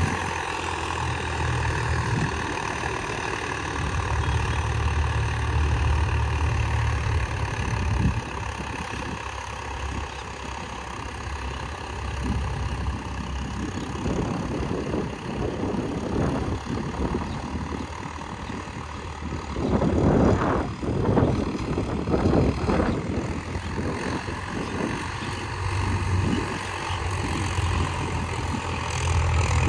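Swaraj 744 FE tractor's three-cylinder diesel engine running steadily while working a field with a disc harrow. The low engine hum is strongest early on and again near the end, with a louder noisy stretch about two-thirds of the way through.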